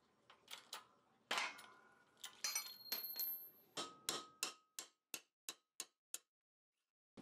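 Light hammer taps on a steel punch driving a pin out of a cast-iron bracket: a run of sharp metallic clicks, some ringing briefly. The taps are irregular at first, then come evenly at about three a second in the second half.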